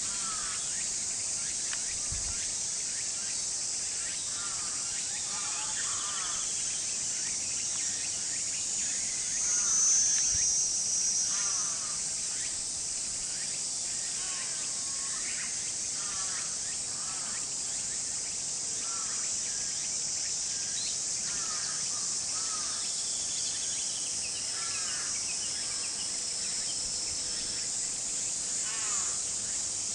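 A steady, high-pitched outdoor insect chorus, which swells louder for a couple of seconds about ten seconds in. Short high chirping calls come and go throughout.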